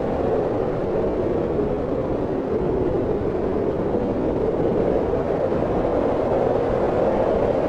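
Steady wind blowing, a low, even rushing with a faint hollow howl, its level hardly changing.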